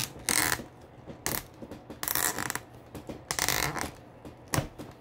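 A figure's removable sword scraping and clicking against the plastic holder on the statue's back as it is worked in and out, in several short bursts.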